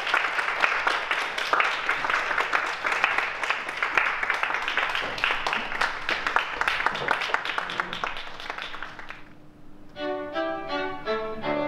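Audience applause as the performers walk on, dying away after about nine seconds. About a second later a string quartet starts playing, with violins and cello in clear bowed notes.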